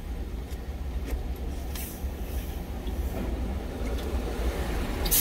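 Steady low rumble of an idling truck engine heard inside the cab, with a few light clicks of a spoon and chopsticks against a stainless-steel lunch container; the sharpest click comes right at the end.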